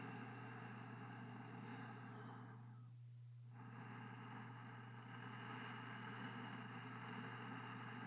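Faint room tone: a steady low electrical hum under a soft hiss, which drops away briefly about three seconds in.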